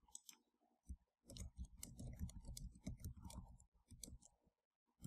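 Faint computer mouse clicks, then a couple of seconds of quick keyboard typing, then a few more clicks.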